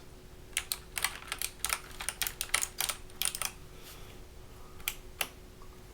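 Keystrokes on a Hexgears Supernova mechanical keyboard fitted with clicky Kailh BOX Jade switches. An irregular run of key clicks is typed, thinning to a few single clicks near the end.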